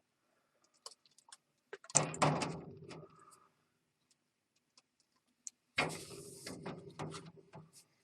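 Plastic 20 oz soda bottles being loaded into a vending machine's vertical drop column: scattered light clicks, and two longer clattering knocks with a brief ring, about two seconds in and again about six seconds in.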